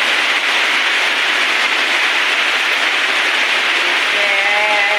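Rain on a corrugated-metal roof: a steady, loud hiss.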